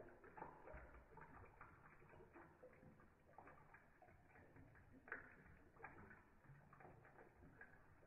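Very faint, irregular patter of soft clicks and rustles from a wet yellow ringneck parakeet spreading and shaking out its wings after a bath in a water dish, with one slightly sharper tick about five seconds in.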